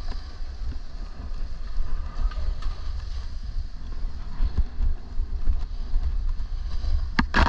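Wind rumbling on an action camera's microphone at speed, over the steady hiss of edges sliding on packed snow. Near the end a run of loud, sharp scrapes as the edges bite into the snow.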